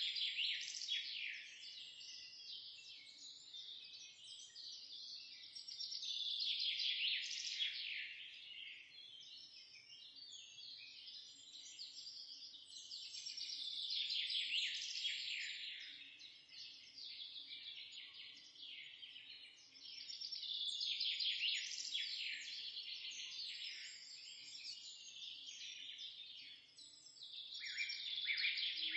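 Songbirds chirping and singing in a dense, continuous chorus of quick high chirps and trills that swells louder about every seven seconds.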